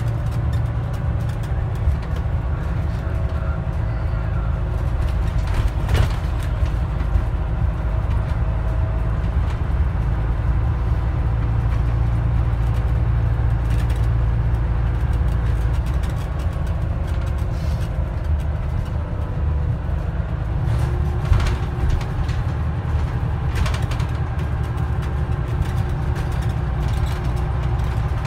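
Scania N94UD double-decker bus under way, heard from the upper deck: a steady low engine drone and road rumble, with a faint whine that slowly shifts in pitch. A couple of sharp knocks come through, one about six seconds in and one about two-thirds of the way through.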